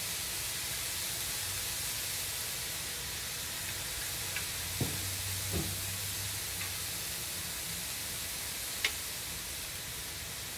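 Beef brisket slices and bean sprouts sizzling on a hot griddle pan, a steady hiss, with a few light clicks of wooden tongs and chopsticks against the pan, the sharpest about nine seconds in.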